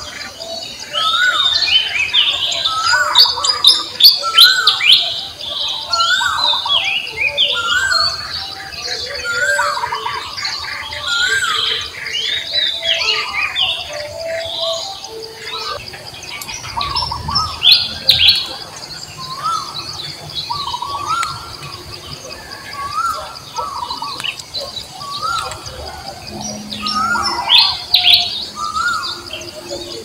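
Several birds chirping and calling in quick, overlapping, repeated phrases, busiest in the first few seconds, over a steady high-pitched whine.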